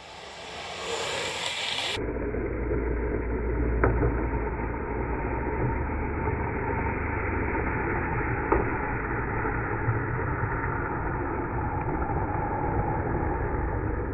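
Longboard urethane wheels rumbling over asphalt as the rider slides downhill, with steady wind buffeting on the microphone; it grows much louder about two seconds in, and there are two short sharp knocks, one about four seconds in and one about eight and a half seconds in.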